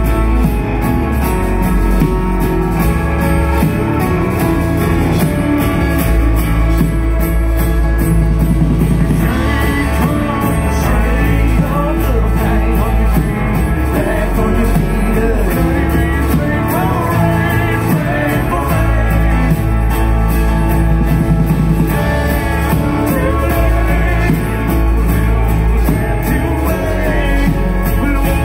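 Live country-rock band playing loudly: acoustic guitar, bass and drum kit. A singing voice comes in about nine seconds in.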